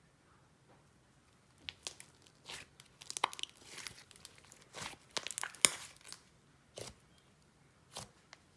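Thick icing-and-clay slime being pressed, stretched and mixed by hand, giving irregular sticky crackles and pops that start about a second and a half in.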